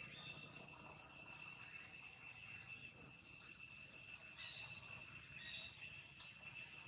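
Faint, steady high-pitched drone of insects, a few constant tones held without a break.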